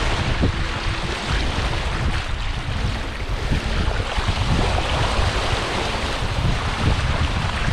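Wind buffeting the microphone over rushing water and waves, a steady noisy rush with gusty low rumble.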